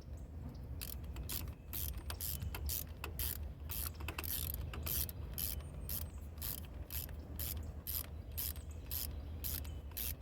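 A 3/8-inch socket ratchet clicking in a steady rhythm, about two to three clicks a second, as a new spark plug is snugged down.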